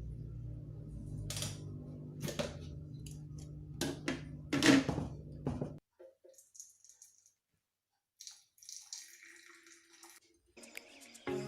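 Blended ginger, cucumber and lemon juice being strained: liquid pouring and splashing, with several sharp clinks of utensils against a bowl over a steady low hum. It cuts off abruptly about halfway through, leaving near silence with faint noises, and music starts just before the end.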